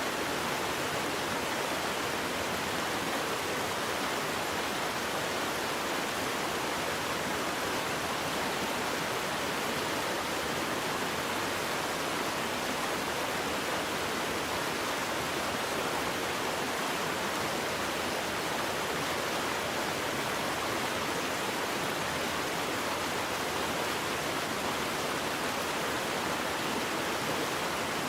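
Waterfall: falling water rushing in a steady, unbroken hiss that does not change.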